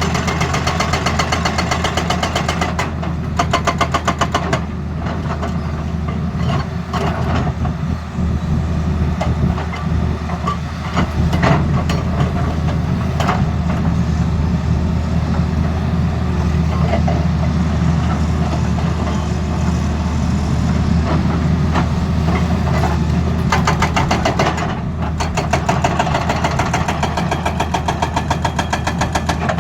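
Tata Hitachi excavator's diesel engine running steadily under load while its hydraulic breaker hammers in rapid, regular blows, stopping and starting in spells: at the start, briefly a few seconds in, and again near the end.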